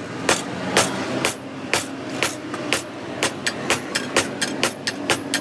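Hammer blows ringing on a steel bar being forged into a sabal (digging bar), steady at about two strikes a second, then quickening to about four a second from about three seconds in, over a steady low hum.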